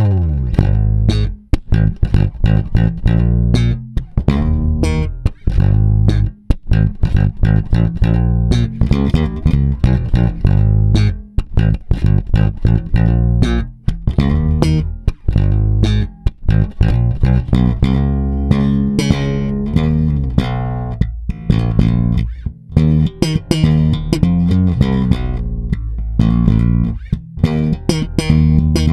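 Fender Squier Jaguar electric bass played solo, a busy run of plucked notes with sharp attacks and a deep, full low end.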